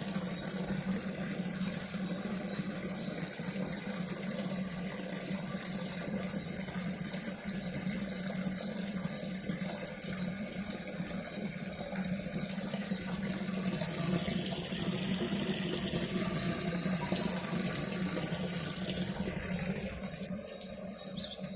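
Garden pond waterfall splashing steadily into the pond, a little louder about two-thirds of the way through.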